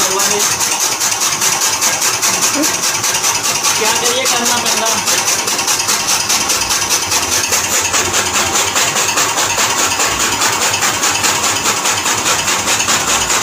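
Electric-motor-driven chaff cutter running, its flywheel blades chopping green fodder as it is fed in by hand: a steady, fast, even chopping rhythm.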